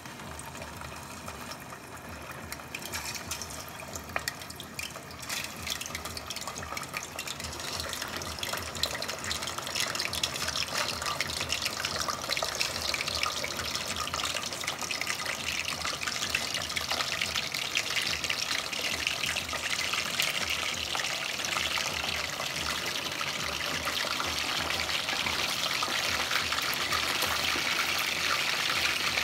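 Chicken wings deep-frying in hot canola oil: a steady crackling sizzle that grows louder as more wings go into the oil.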